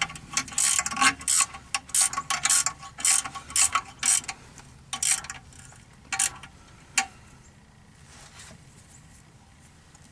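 Hand ratchet wrench clicking in short, repeated strokes as a flexplate bolt is run in and tightened, the strokes thinning out and stopping about seven seconds in.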